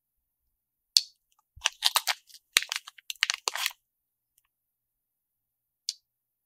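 Small clear plastic parts bag crinkling for about two seconds as tiny M3 screws are taken out of it, with a sharp tick about a second in and another near the end as small metal screws are set down on a cutting mat.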